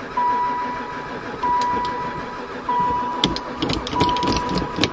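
Van's starter cranking the engine, which turns over without firing: the engine has no spark. A high warning chime repeats about every second and a quarter, and a run of sharp clicks comes near the end.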